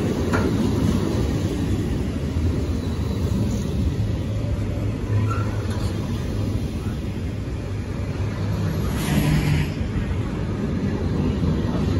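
Container wagons of a freight train rolling past close by: a steady low rumble of wheels on rail, with a short louder rush of higher noise about nine seconds in.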